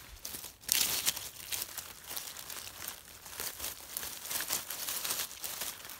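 Dry fallen leaves and twigs crackling and rustling as a hand pushes through the forest-floor litter and grips a porcini mushroom to pick it. The loudest crackles come about a second in, followed by a run of smaller ones.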